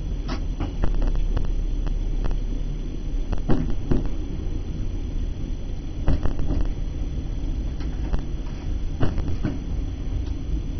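Diesel passenger train running, heard from inside the driver's cab: a steady low rumble with irregular clicks and knocks from the wheels on the track and the cab fittings.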